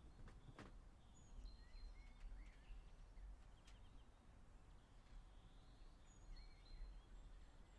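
Near silence: faint outdoor ambience with a low steady hum and a few scattered, faint bird chirps.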